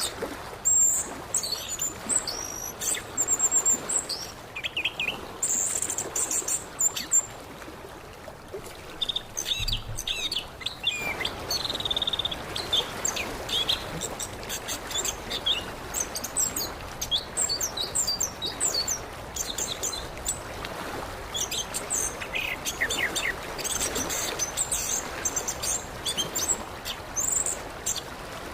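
Orange-headed thrush singing a fast, varied song of short high chirps and whistles, over a steady rushing background that grows louder about eleven seconds in.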